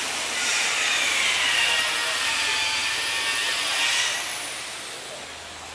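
Loud mechanical whirring with a hiss, its pitch dipping and then rising again before easing off about four seconds in.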